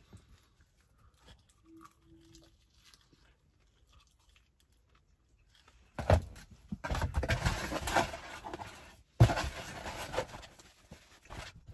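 A person chewing a bite of pizza close to the microphone. The mouth noises come in two loud stretches, starting about six seconds in and again a little after nine seconds, after several quiet seconds.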